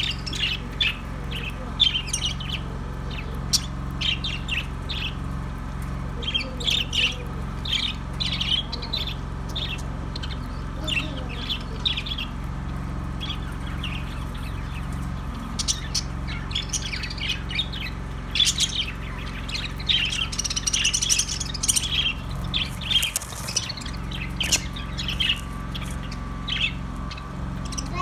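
A flock of budgerigars chirping and squawking, many short calls overlapping without a break, busiest in the second half, over a steady low hum.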